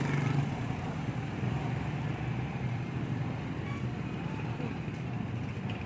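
Street traffic noise: a vehicle engine running with a steady low hum over general road noise, a little louder in the first half second.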